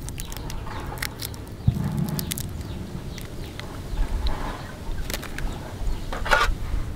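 Light clicks and rustles of hands handling raw mantis shrimp on a wooden board, with a soft knock about one and a half seconds in and a short rasp near the end, over a low steady background rumble.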